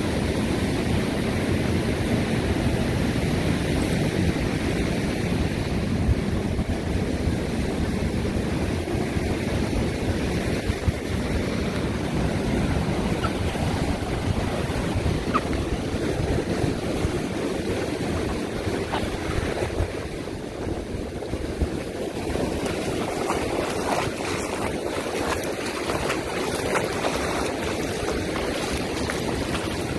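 Ocean surf breaking and washing up the beach in a steady rush, with wind rumbling on the microphone.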